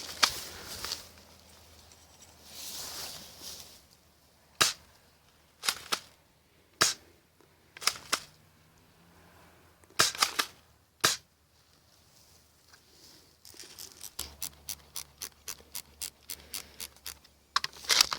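Airsoft pump-action shotgun firing and being worked: about six sharp snaps a second or so apart, some followed closely by a second click, then a quick run of fainter ticks, about four a second, for several seconds.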